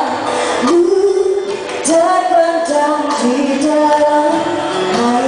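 A woman singing live into a handheld microphone with musical accompaniment, holding long notes and sliding between pitches.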